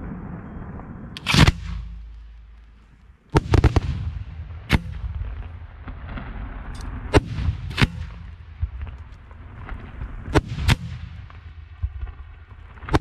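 Aerial firework shells bursting overhead: about ten sharp booms at irregular spacing, each trailing off in a rumbling echo. One of the loudest comes about a second and a half in, and three follow in quick succession a couple of seconds later.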